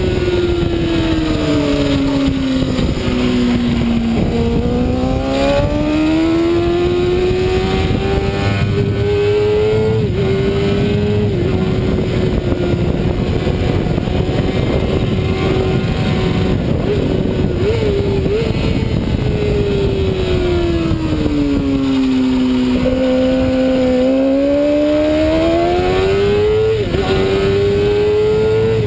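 Racing sport bike engine at full load, with wind rush over the fairing: the engine note falls over the first few seconds, climbs back with two quick upshifts, holds steady on a straight, then falls and climbs again near the end with another upshift.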